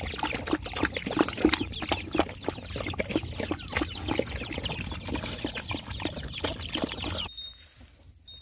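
A dog lapping and slurping watery porridge from a bucket: a rapid, irregular run of wet smacks and clicks that stops abruptly about seven seconds in.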